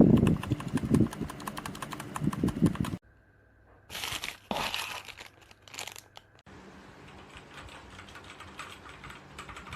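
Mechanical keyboard switches clicking in quick runs of keystrokes, in short clips cut together. The middle clip has a few louder rustling bursts, like packaging being handled.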